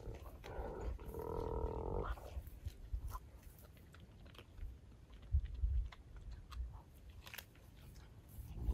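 African wild dogs feeding on an impala carcass: faint crunching and tearing clicks of chewing, with one drawn-out whining call from one of the animals about half a second in, lasting about a second and a half.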